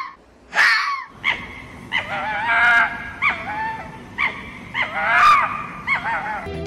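Hippopotamus calling: a series of repeated calls with rising and falling pitch, about a dozen in all.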